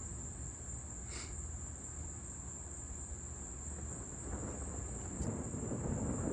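A steady, high-pitched insect chorus trills throughout. Thunder starts to rumble low about two thirds of the way in and grows louder toward the end.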